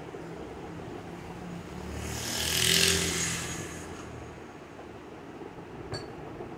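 A road vehicle passing by: its rumble and hiss swell to a peak about three seconds in, then fade away. A short click follows near the end.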